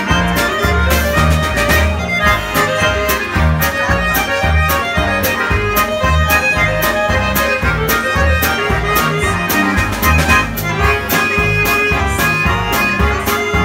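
Two Swiss button accordions (Schwyzerörgeli) playing a lively folk dance tune together, with a regular bass pulse and a steady drum beat.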